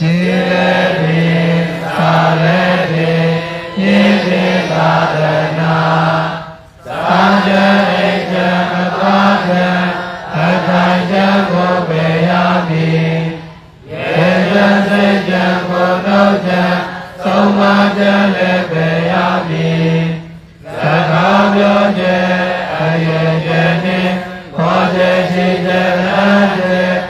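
A man's voice chanting a Buddhist text in a steady recitation tone. It moves between two close notes in long phrases, broken by short pauses for breath, the longer ones about every seven seconds.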